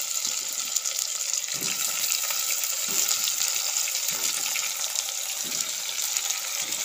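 Oil sizzling steadily in a clay pot as whole raw mangoes go in on top of sautéing shallots, garlic and tomato, with a few soft knocks as the mangoes are set down.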